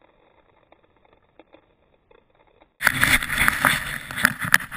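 Faint, muffled outdoor quiet with a few soft ticks, then from about three seconds in a sudden loud rustling and crunching of footsteps in snow, with handling noise from the camera carried over the snow.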